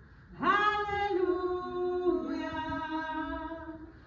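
Unaccompanied singing of a 'halleluja' refrain from a Danish hymn. It is one long held phrase that begins about half a second in, and from about two seconds in two notes sound together in harmony.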